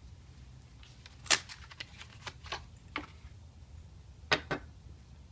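Cardboard lamp box being handled and a long compact fluorescent lamp slid out of it: scattered sharp clicks and scrapes, the loudest just over a second in and another pair a little after four seconds.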